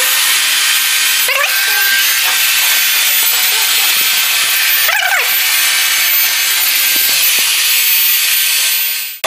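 Electric air pump blowing air into a vinyl air bed: a loud, steady, rushing hiss with a faint motor whine. Two brief squeaks cut through it, about a second in and again about five seconds in.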